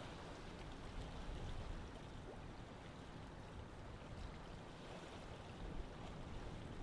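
Steady noise with a low rumble and no distinct events.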